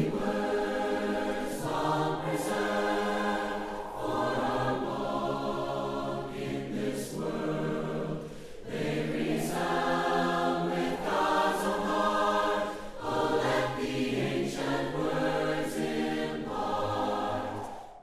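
A choir singing a hymn in several-part harmony, sustained chords changing every second or so, stopping at the very end.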